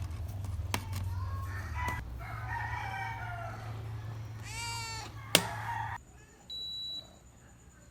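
A rooster crowing, with a sharp click about five seconds in. After a cut, a short, steady, high-pitched electronic beep sounds.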